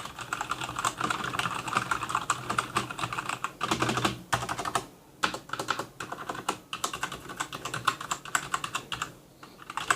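Typing on a Motospeed CK104 mechanical keyboard with red linear switches: a fast, dense run of key clacks, with a short pause about five seconds in and another near the end.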